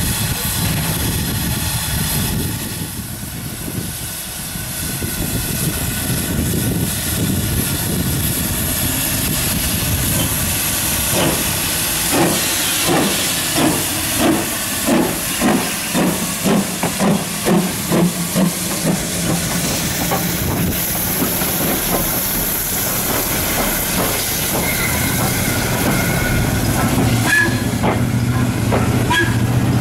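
LMS Ivatt Class 2 2-6-0 steam locomotive hissing steam from its cylinders, then working past with steady exhaust beats, about one and a half a second and quickening slightly. Its coaches then roll by with a rumble on the rails and a brief squeal near the end.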